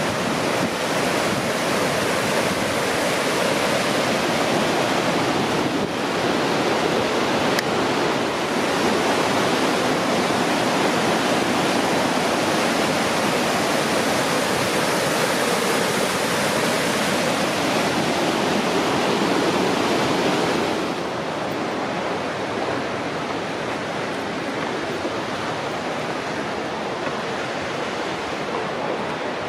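Mystic Falls, a 70-foot cascade on the Little Firehole River, rushing steadily as the water pours over several levels. About two-thirds of the way through, the rush becomes slightly quieter and duller.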